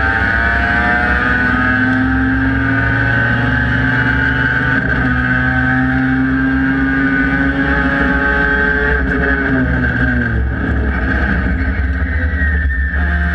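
Several production-class race cars' engines running together, their overlapping notes sliding slowly in pitch, mostly falling, as the field drives on track.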